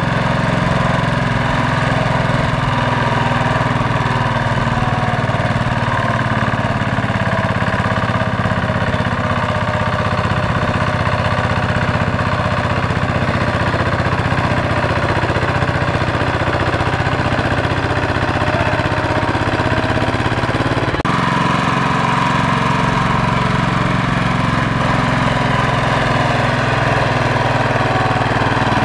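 Walking tractor's single-cylinder diesel engine running steadily, a loud chugging drone as it strains to pull a loaded trailer through deep mud.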